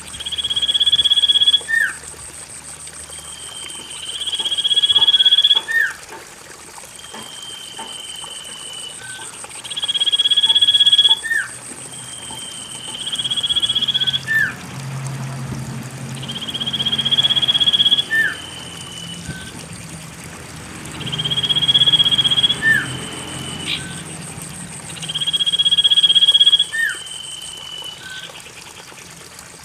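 Common iora (cipoh) song used as a lure: a long drawn-out whistle, rising slightly and ending in a quick flick, repeated about seven times every three to five seconds. Beneath it are faint trickling water and a steady high trill.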